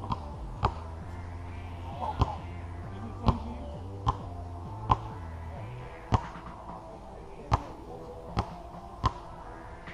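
A basketball bouncing on a hard outdoor court: about ten sharp bounces at uneven intervals. Background music with sustained notes plays underneath.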